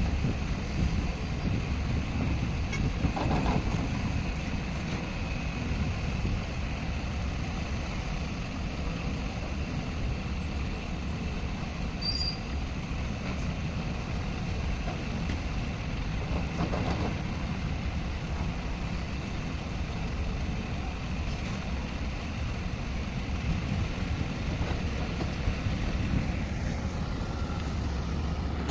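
Heavy earthmoving machine's diesel engine running steadily under load, a deep rumble with brief swells about 3 seconds in and again at about 17 seconds.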